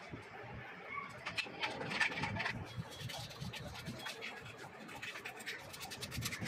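Quick light clicks and taps of metal on metal as a screwdriver works the rusted hook and shuttle-race parts of an old sewing machine. They start about a second in and keep coming, thick and irregular.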